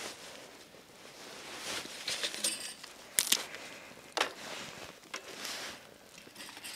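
Dry twigs and bamboo crackling and snapping, with rustling and a few sharp cracks about three to four seconds in.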